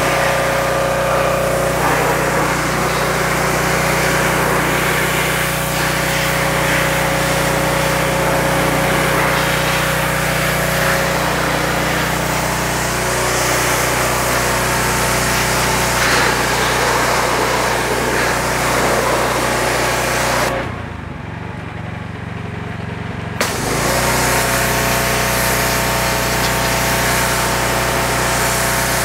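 Pressure washer running steadily, its high-pressure spray hissing against a transmission casing to clean off dirt. The spray noise drops out for a few seconds near the end, then comes back with a click.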